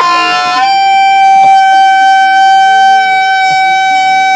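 A loud, steady buzzy tone held for about four seconds, stepping up slightly in pitch about half a second in.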